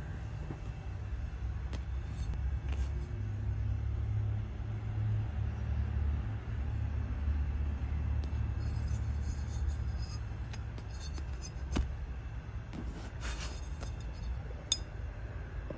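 A steady low rumble, with scattered light clicks and rustles in the second half.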